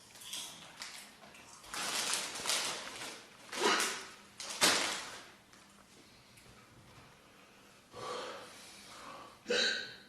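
A girl burping: a series of short, airy burps with breathing between them, and a more voiced burp near the end.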